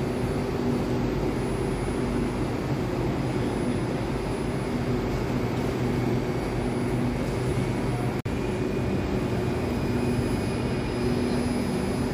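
Electric trains at a station platform giving a steady, even hum and drone. The sound drops out for an instant about eight seconds in.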